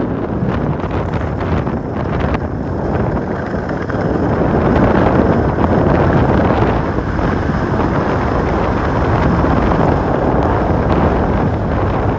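Wind rushing over a handheld phone's microphone during a downhill ski run, mixed with the skis sliding over packed snow: a steady rushing noise that grows a little louder about four seconds in.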